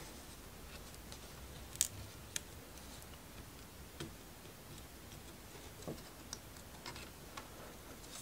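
Scattered light clicks and taps of small laser-cut plywood model parts being handled and worked out of their sheet, the sharpest snap about two seconds in.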